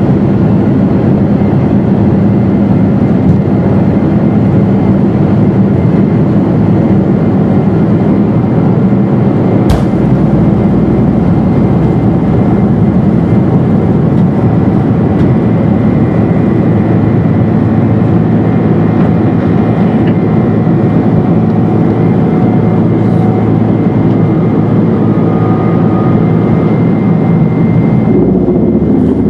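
Inside the cabin of a Boeing 747-400, its four GE CF6-80C2B1F engines at takeoff power through the takeoff roll and climb-out: a loud, steady, dense rumble. A single sharp thump comes about ten seconds in.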